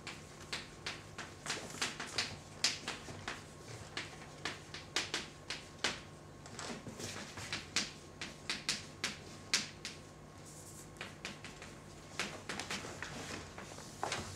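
Chalk tapping and scraping on a blackboard as words are written: an irregular run of short, sharp clicks and scratches, with a denser stretch of strokes near the end as a line is drawn under the title.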